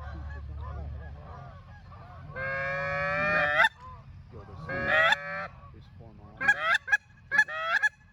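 Canada geese honking: two long, drawn-out honks, then a quick run of short, clipped honks near the end. A low hum fades out in the first second.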